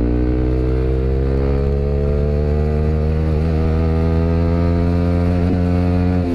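Yamaha WR155R's single-cylinder four-stroke engine through a GP7 Max 4.1 aftermarket exhaust, held at full throttle in second gear from 4000 rpm, its note rising slowly and steadily in a long pull. The climb breaks off right at the end.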